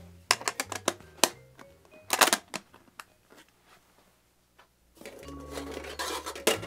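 Metal clicks and knocks as the side door of a Bolex Rex 3 16 mm film camera is fitted back on and latched shut, loudest about two seconds in. After a short quiet, soft background music comes in, with a sharp metallic click from a film can near the end.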